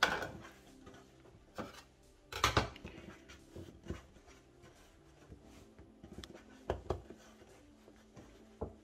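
Hands pressing and patting floured sourdough dough flat on a wooden worktop: a few soft dabs and rubs at irregular intervals, the loudest about two and a half seconds in.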